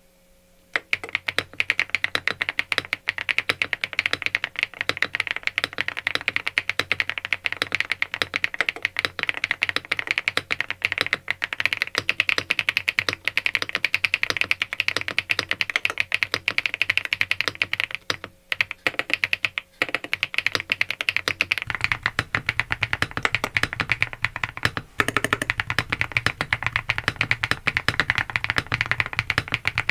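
Typing on an SPM Joyakdol 75 mechanical keyboard rebuilt with an FR4 plate and PC keycaps: rapid, continuous key clacks. About two-thirds of the way through, the typing takes on a fuller low end with a low hum under it.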